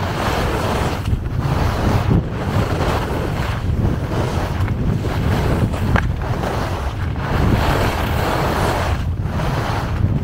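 Wind rushing over the camera's microphone during a fast downhill ski run, with skis scraping the packed snow. The hiss dips briefly every second or two as the skier links turns.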